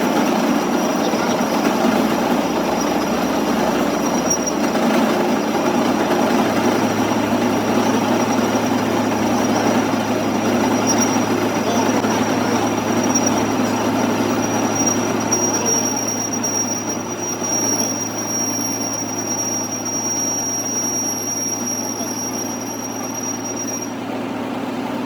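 Metalworking machine running steadily, with a continuous high-pitched whine over a dense mechanical din; a low hum joins about six seconds in.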